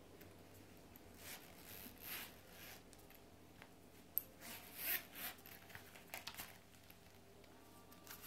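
Metal zipper of a leather clutch wallet being pulled open, with soft rubbing of hands on the leather, a sharp click a little after four seconds and a few light clicks after it.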